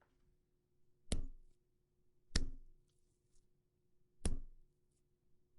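Heavy blows struck on a soft foley prop to make gore sound effects: three hits a second or two apart, each a sharp smack with a short squelchy tail, and a fourth just at the end.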